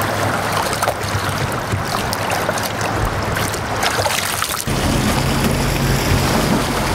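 Wind and splashing lake water. About two-thirds of the way through, a Malibu wakeboard boat's engine cuts in, running at a steady low hum.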